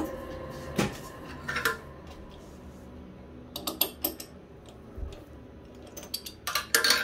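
Sharp metallic clicks and clinks of a steel chuck key being fitted and turned in a three-jaw lathe chuck, loosening the jaws to release a bolt, with a cluster of clinks near the end. A low steady hum runs underneath.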